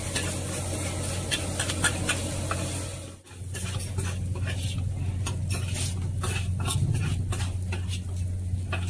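Metal wok spatula scraping and clinking against a steel wok as noodles are stir-fried and sizzle, over a steady low hum. After a brief drop about three seconds in, the spatula scrapes the fried noodles out of the wok into a steel basin.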